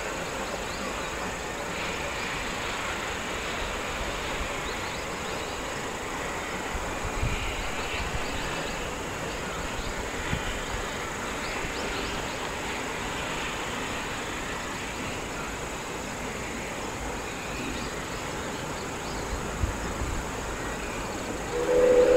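Steady outdoor background hiss with faint high chirps, then near the end an Oigawa Railway steam locomotive's whistle starts up loudly, a held sound of several steady tones.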